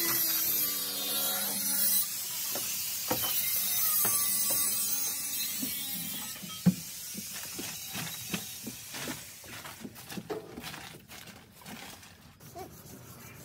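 A loud hiss that fades away over the first six seconds or so, then scattered sharp knocks and clicks of hand work on a bus body.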